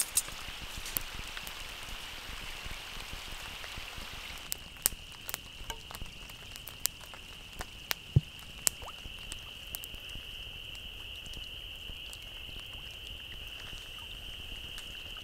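A steady high-pitched chorus of frogs calling, with scattered light ticks of raindrops over a faint patter of rain.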